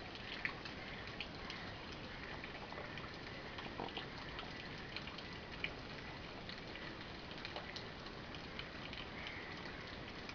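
Faint pond ambience: a steady hiss with small, irregular ticks and plops at the water surface, where fish are feeding among floating water hyacinth.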